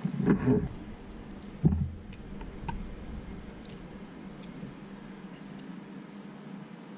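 Small eating and food-handling sounds as fried sand smelt are dipped in sriracha mayonnaise and eaten: a short sound near the start, a sharp knock about two seconds in, then faint squishes and ticks.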